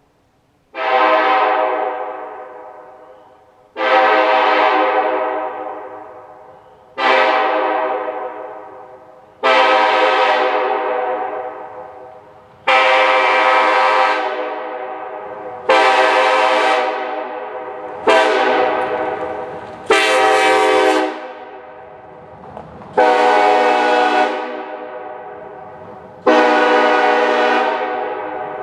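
Multi-chime locomotive air horn blown in a series of about ten blasts, each one starting abruptly on a full chord and then fading away over two or three seconds before the next.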